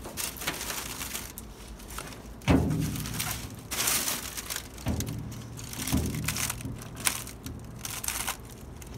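Rubber window gasket being worked by gloved hands into the rear-window channel of a 1974 Chevy C10 cab. Irregular scuffing and rustling, with a few dull thumps against the cab: the loudest about two and a half seconds in, others near five and six seconds.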